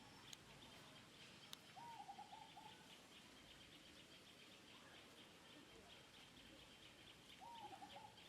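Faint outdoor ambience: a bird gives a short wavering call twice, about two seconds in and again near the end, over a steady, fast, high-pitched chirping that runs throughout.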